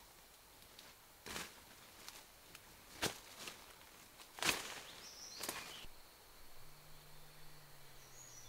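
A few slow footsteps through forest undergrowth and leaf litter, four sharp rustling steps spaced a second or more apart. There are short high bird chirps, and a thin steady high tone comes in from about six seconds.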